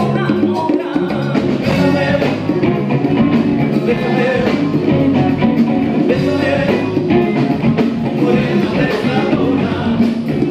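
Live Latin band playing an upbeat number, with electric guitars and a man singing over the full band.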